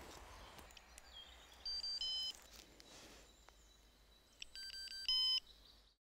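Haglöf Digitech Professional 2 computer caliper beeping as its buttons are pressed: two short high electronic beeps about two seconds in, then three more near the end, the last one the loudest.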